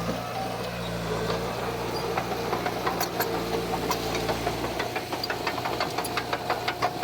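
Diesel engine of heavy earthmoving machinery running, with a stream of sharp clanks and rattles that grows thicker in the second half. About five seconds in the deep engine note drops away and a steady higher whine comes in.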